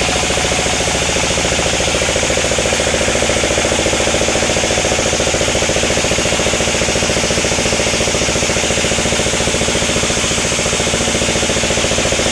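Sawmill machinery running steadily, a loud continuous engine-like drone with fast, even pulsing.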